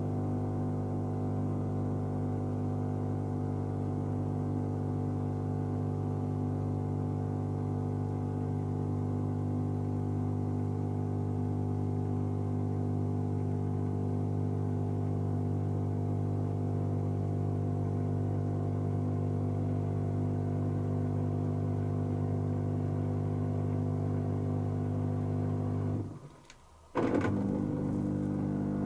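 Dyson Contrarotator CR01 washing machine motor running with a steady hum. Near the end it cuts out for about a second, then starts up again abruptly.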